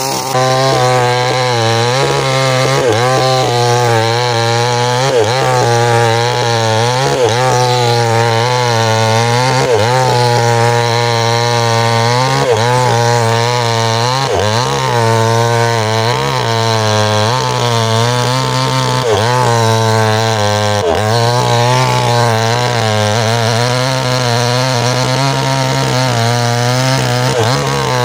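Mini chainsaw running hard while cutting into ironwood, the engine pitch dipping and recovering over and over as the chain bites into the dense wood.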